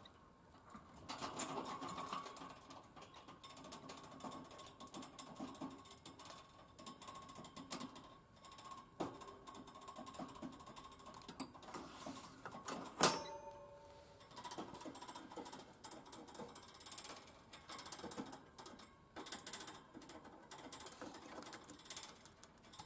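Light, irregular clicking and rattling around a budgerigar's wire cage, with one sharper click about halfway through. A faint steady tone hangs under the clicks for the first half.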